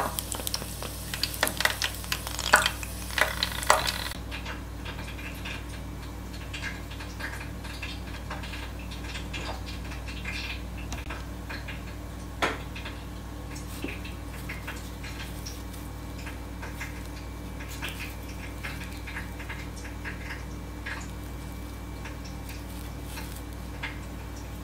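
Oil sizzling and crackling in a deep fryer around a basket of fried dumplings for the first few seconds. It cuts off abruptly, leaving a steady low hum with scattered light taps and clicks, one louder about halfway through.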